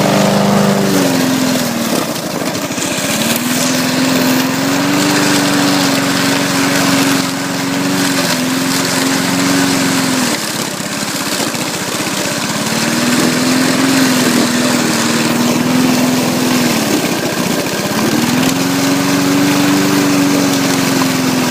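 Petrol lawn mower engine running steadily. Its speed sags briefly three times and picks back up each time.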